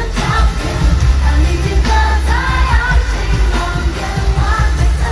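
Mandopop song performed live in a concert venue: a woman singing over loud bass-heavy backing music with a steady beat.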